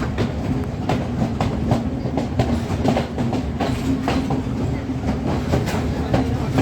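Passenger train running along the track: a steady low rumble with a constant hum, broken by irregular clacks and knocks of the wheels over the rails.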